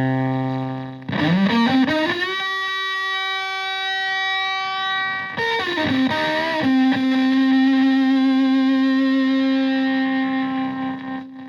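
Electric guitar with single-coil pickups through a Tone Bender MkII-style fuzz pedal and a Twin Reverb-style amp, playing long sustained fuzzed notes. About a second in a note slides up and is held; past the middle it slides back down to a lower held note, which fades out at the end.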